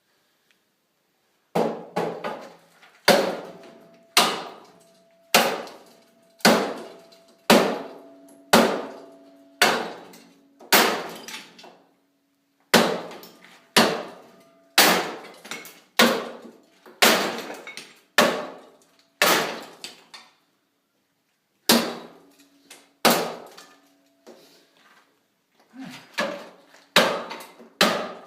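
Repeated hammer blows, about one a second, each with a short ringing tail. There are short pauses about halfway through and near three-quarters of the way, and a quicker run of lighter blows near the end.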